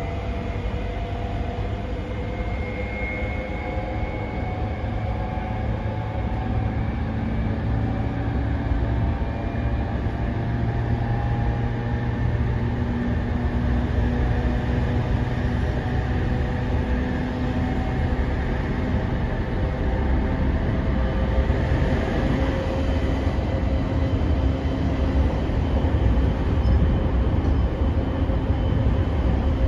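A JR 209 series 500-subseries electric train running between stations, heard from inside a passenger car: a steady rumble of wheels on rail and the car's running gear, growing slightly louder over the span.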